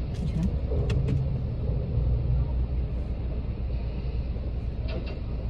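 Steady low rumble of a car driving, heard from inside the cabin, with a few short clicks about a second in and again near the end.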